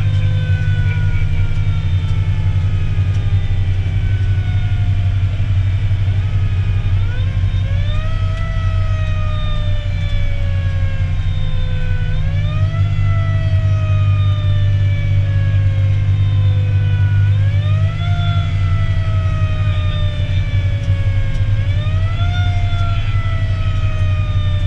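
Fire engine's siren over the heavy low drone of the engine and road, heard from inside the cab: a long falling tone, then the siren winds up quickly and falls slowly again four times, about every four and a half seconds.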